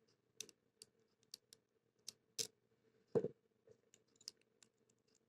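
Small metallic clicks and taps of a lock pick and tension wrench working the pin stack inside a CITY ISEO Aditus 60 mm padlock, about ten irregular clicks with a duller, louder knock a little after three seconds in.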